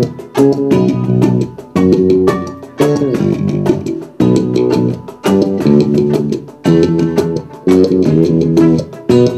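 Electric bass guitar played live: plucked notes and chords in short phrases, each starting sharply and dying away before the next.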